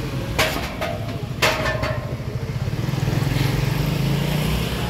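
Street traffic: a motor vehicle engine runs with a low steady rumble that grows louder about three seconds in. Two short, sharp sounds with a brief ring come about a second apart near the start.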